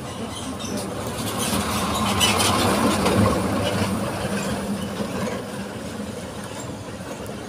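A motor vehicle passing close by: its engine and tyre noise swell to loudest about two to three seconds in, then fade.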